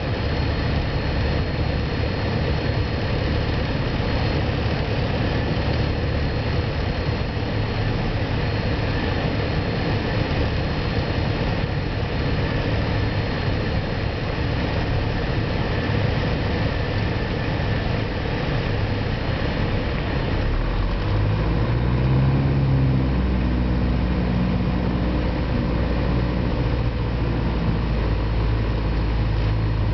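Piper PA-28 Cherokee's piston engine and propeller running steadily, heard inside the cabin on final approach. About 21 seconds in the engine note shifts and the low drone grows louder.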